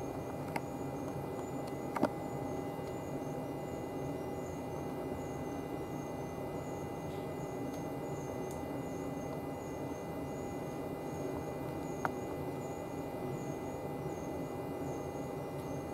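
Steady electrical hum inside a stationary electric train car, with faint steady high tones from its onboard equipment and a few faint clicks.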